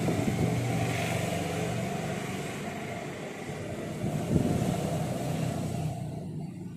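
A motor vehicle going past, its engine and road noise holding steady and then fading away near the end.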